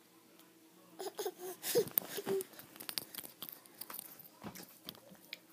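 A nine-month-old baby making two brief high vocal sounds amid a spell of rustling and crackling noise that starts about a second in.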